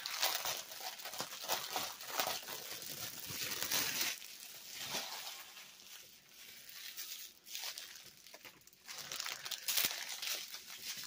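Plastic crinkling and rustling in irregular bursts as a diamond painting canvas with its clear plastic cover film is handled. It is busier at the start and near the end, with a quieter stretch in the middle.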